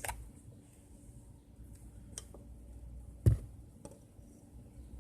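A few light clicks and taps from an oil bottle and a bowl being handled while olive oil is poured, with one louder knock about three seconds in.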